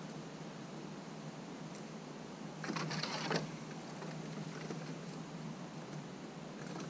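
Eastern gray squirrel's claws scrabbling on a wooden fence as it climbs: a quick burst of scratching, about a second long, roughly midway, over a steady hiss.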